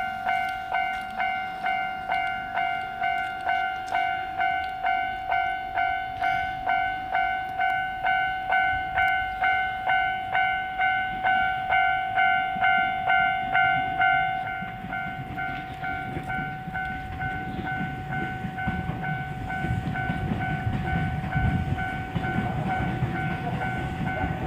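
Japanese level-crossing bell ringing in a steady two-tone 'kan-kan', about two strikes a second. About 14 seconds in the bell becomes quieter, and the rumble of a Kanto Railway Ryugasaki Line train rises beneath it as the train draws near the crossing.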